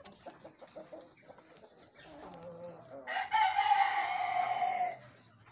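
Light Brahma rooster crowing once: a rising lead-in about two seconds in, then one long, slightly falling held note for about two seconds. A few soft, quick clucks come before the crow.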